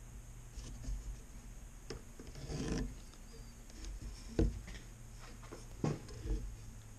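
Pencil scratching marks on a wooden board against a plastic layout square, with two sharp knocks of the square and hand against the wood, one about four seconds in and one near the end.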